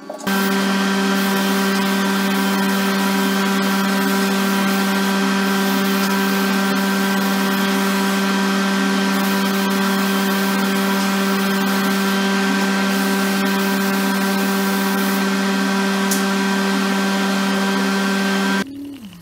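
A loud, steady motor whine at one unchanging pitch, starting suddenly just after the start and cutting off suddenly near the end.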